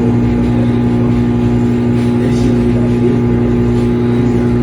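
Galanz 3-in-1 microwave air fryer running mid-cooking cycle: a loud, steady low hum that does not change.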